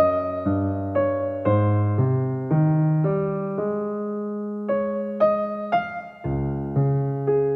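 Background music: an electric piano playing a gentle melody with chords, notes struck about twice a second with a longer held chord in the middle.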